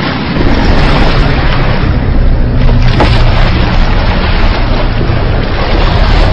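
Loud, continuous splashing and churning of water as a crocodile lunges in an attack, with a deep rumble underneath.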